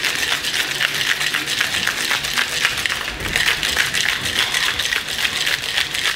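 Ice cubes rattling fast inside a metal cocktail shaker as it is shaken hard by hand, with a brief let-up about three seconds in. This is a pisco sour being shaken with egg white to froth it.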